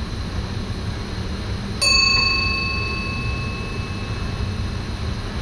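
A single bell-like chime in the cab of an SGM Sprinter train strikes about two seconds in and rings away over a couple of seconds, over the train's steady low running rumble.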